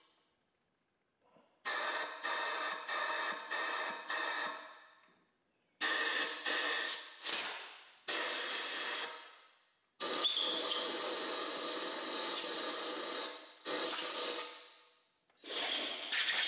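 Compressed air from a long-nozzled air blow gun hissing down the steam holes of a Model T Ford engine block. It comes as a run of short quick blasts, then longer blasts of a few seconds each, blowing rust out of the cooling passages.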